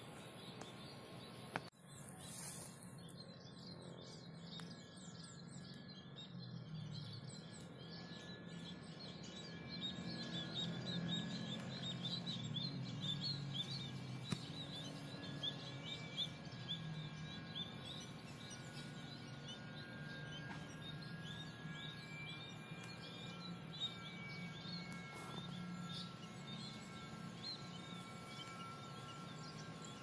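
Bird and insect ambience: birds chirping in quick, repeated calls, busiest in the middle, over long steady insect tones and a low, even background hum.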